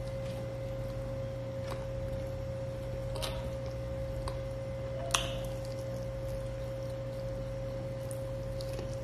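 A man eating grilled chicken and rice by hand: wet chewing and mouth sounds, with a few sharp clicks and smacks, the loudest about five seconds in. A steady hum runs underneath.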